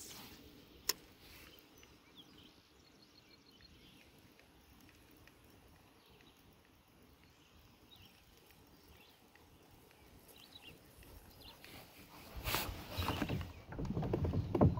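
Mostly quiet ambience with a single soft click and faint small ticks from a spinning reel being wound. About twelve seconds in, a louder low rumbling noise starts and keeps going.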